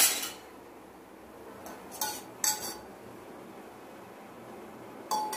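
Metal kitchenware clanking and clinking: one sharp clank at the start, then a few lighter metallic clinks about two seconds in and once more near the end.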